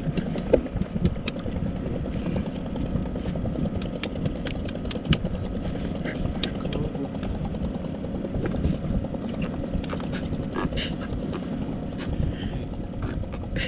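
Steady low rumble with many scattered sharp clicks and taps as a large pufferfish is handled in a mesh landing net on a wooden boat.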